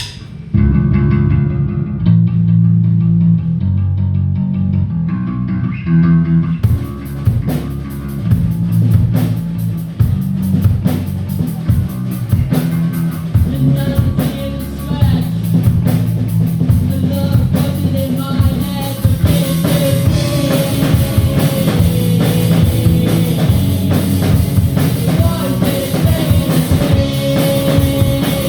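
Live rock band opening a song: a low guitar and bass riff starts about half a second in, and the drum kit with cymbals comes in about six and a half seconds in, the full band then playing on.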